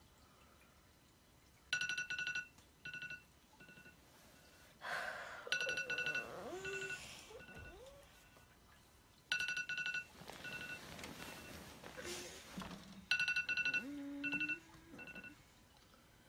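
Smartphone alarm ringing: a quick run of high electronic beeps followed by a few single beeps, repeating about every four seconds, four times. Between the beeps a person groans drowsily and bedding rustles as she wakes.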